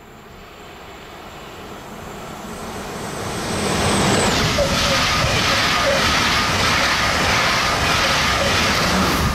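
ÖBB Railjet train led by its electric locomotive passing at high speed: a rumble building as it approaches, peaking as the locomotive goes by about four seconds in, then the coaches rushing past with a rhythmic clatter of wheels on the rails. A faint high whine stops as the locomotive passes.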